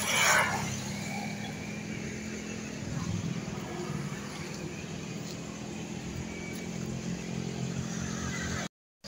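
Motor vehicle engine running steadily with road traffic noise, a brief rush of a passing vehicle at the start; the sound cuts off suddenly near the end.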